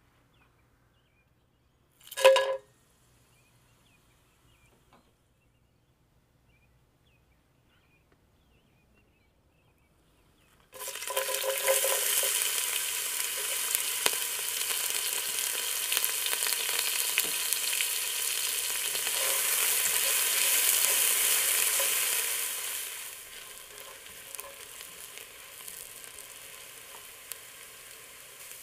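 A single short ringing clink about two seconds in. Near the middle, chopped onion and whole spices hit hot oil in a pot and start sizzling loudly at once; the sizzle eases to a quieter steady frying near the end.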